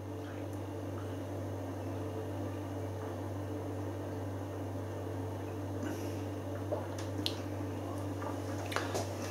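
A man drinking beer from a pint glass: quiet swallowing, then a few soft clicks near the end as he finishes, over a steady low hum.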